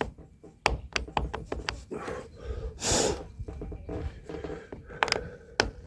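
A hand tool scraping and clicking in the slot of an old screw buried in a wooden deck covering board, cleaning the slot out so a screwdriver can grip it, with a short breathy rush about three seconds in.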